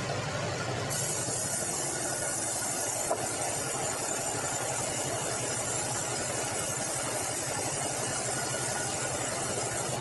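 Sawmill band saw cutting a very hard bengkirai hardwood log on the carriage: a steady high hiss sets in about a second in as the blade works through the wood, over the steady running of the mill machinery, with one short click a few seconds in.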